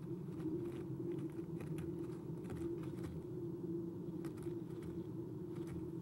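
Irregular light scratching and clicking of an eastern screech owl's talons on the wooden nest box as it climbs in through the entrance hole and settles on the floor, over a steady low hum.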